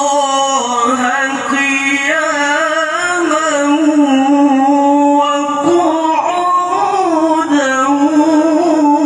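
A male qari reciting the Quran in the melodic tilawah style: one high voice drawn out in long, unbroken ornamented runs that waver up and down in pitch, amplified through a sound system.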